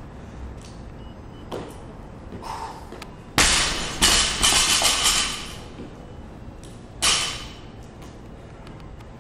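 Loaded barbell dropped onto a plywood lifting platform: a sudden loud bang about three and a half seconds in, then clattering and rattling for about two seconds as the weights bounce and settle. A second, shorter bang comes about seven seconds in.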